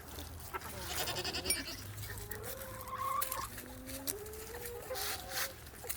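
A goat bleating and chickens clucking, with several drawn-out calls from about two seconds in, some wavering in pitch, over a few short clicks.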